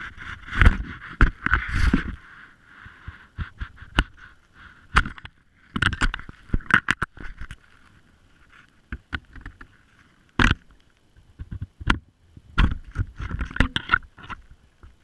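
Underwater sound of a GoPro in its waterproof housing on a magnet-fishing rope: irregular knocks and scrapes as the housing bumps against the rope, the magnet and the dock wall, over a steady hiss of water. The knocks thin out for a couple of seconds past the middle.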